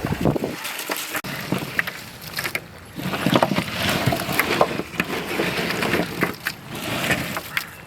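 Irregular knocks and clatter, many short sharp strikes at uneven spacing over a steady background noise.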